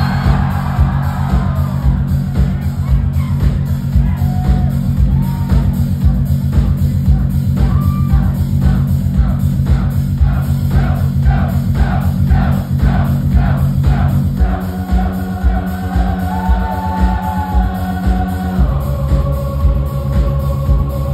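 Live band playing an instrumental funk tune, led by a Sterling signature electric bass playing the fast, busy bass line over drums and keyboards. The band shifts to a new section about fourteen seconds in.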